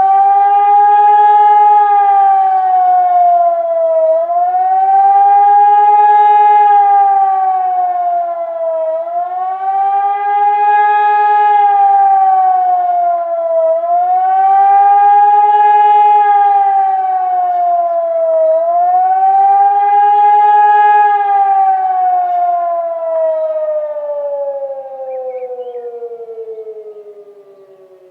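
Hörmann ECN 2400 electronic civil-defence siren sounding the rising and falling wail of the German "Warnung der Bevölkerung" signal, which warns the public of acute danger. The pitch swells and dips about every five seconds, then glides steadily down and fades out as the signal ends.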